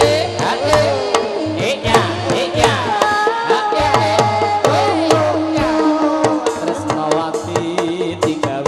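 Javanese jathilan accompaniment music: kendang hand-drum strokes over a sliding, bending melody line.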